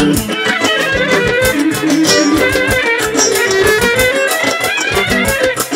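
Live band music: two clarinets playing a fast melody of quick note runs over a steady drum beat.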